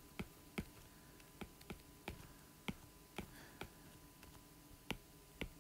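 Stylus tip tapping on a tablet's glass screen during handwriting: faint, uneven clicks, about three a second.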